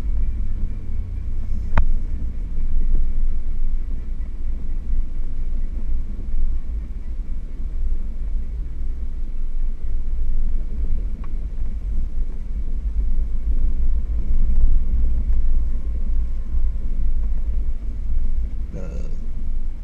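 Four-wheel-drive vehicle's engine and drivetrain running at low speed over a rough dirt trail, a steady low rumble. Two sharp clicks of rock or body knocks come through, one about two seconds in and one about halfway.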